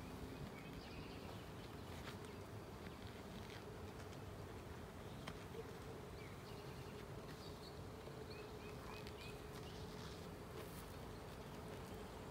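Swarm of honey bees buzzing in a steady, even hum.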